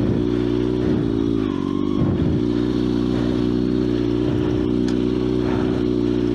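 Motorcycle engine running at a steady speed, its pitch dipping briefly near the start and again about two seconds in, as the bike is worked free over rocks.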